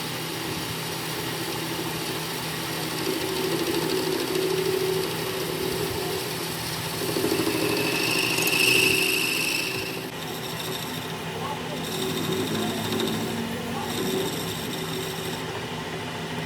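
A workshop machine tool running steadily with a motor hum and a rubbing, cutting sound, with a brief high-pitched whine about eight seconds in.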